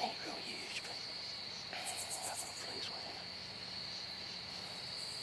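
Crickets trilling steadily in one high unbroken note, with a few faint whispered sounds and a brief soft rustle about two seconds in.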